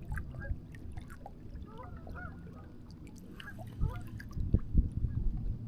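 Geese honking a few times at a distance, over a steady low rumble, with a few short knocks in the second half.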